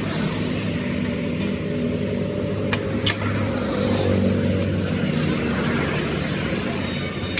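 An engine running steadily at a constant speed, with two sharp metallic clicks about three seconds in.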